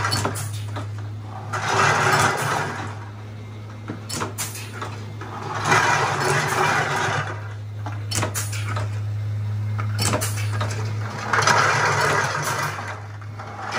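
Bar-top bottle corking machine running: a steady motor hum from its drive, with three rushes of mechanical noise a few seconds apart and a few sharp clicks between them as the feeder and air-driven cylinder cycle. The hum fades near the end.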